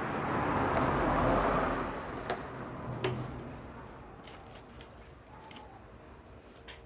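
Soft rustling that swells about a second in and fades away, with a few light taps as small paper squares are slid and set down on a board.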